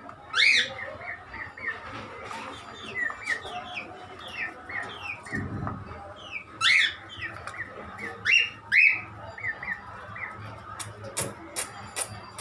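Pet birds, among them a white cockatiel, chirping: a steady run of short falling chirps with four louder shrill calls, one near the start and three in the second half. A few sharp clicks come near the end.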